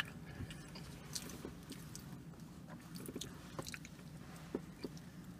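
Quiet chewing of soft molasses buns: small wet mouth sounds and scattered light clicks, with a bite taken during it.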